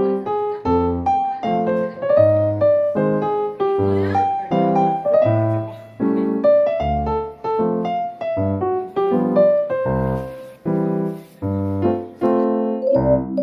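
Background music: a bouncy keyboard tune played in short, separate notes over a low bass line.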